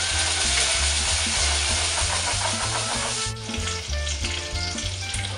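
Food sizzling in a frying pan, a steady hiss that cuts off suddenly a little over three seconds in, over background music with a steady low beat.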